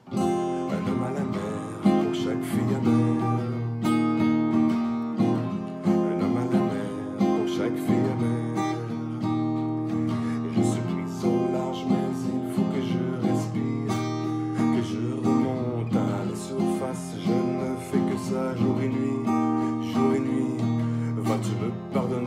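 Acoustic guitar strummed in a steady rhythm of full chords.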